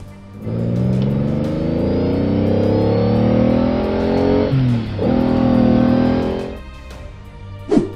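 Car engine sound effect accelerating, its pitch climbing steadily, dropping once about five seconds in as if shifting gear, then climbing again before fading out, over background guitar music.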